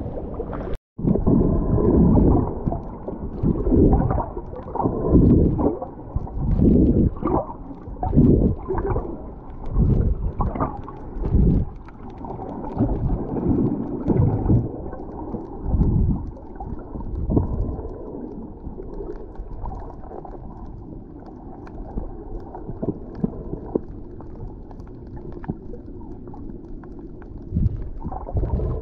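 Muffled sloshing and gurgling of water against a snorkeller's waterproof camera, in irregular surges every second or two that settle into a steadier low rumble after about eighteen seconds. The sound cuts out for an instant about a second in.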